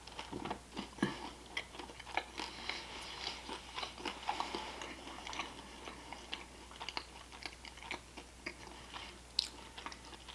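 A person chewing and crunching crab-meat-stuffed wontons close to the microphone, with irregular wet mouth clicks and crunches that thin out toward the end.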